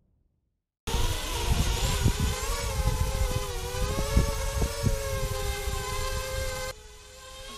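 Racing quadcopter's brushless motors and propellers whining, starting abruptly about a second in, as it spins up and lifts off. The pitch wavers slightly with throttle, and there is low wind rumble on the microphone. Near the end the sound drops sharply quieter.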